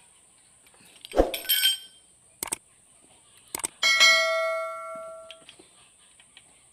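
Steel hand tools clinking against the rocker gear of a Komatsu six-cylinder diesel engine during a valve clearance adjustment. A knock and a short jingle come just after a second in, then two light clicks. About four seconds in there is one metal clang that rings on for over a second.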